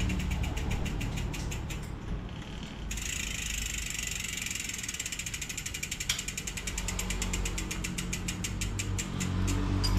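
Mountain bike rear freehub ratcheting as the wheel spins freely: a rapid, even train of pawl clicks that slows toward the end.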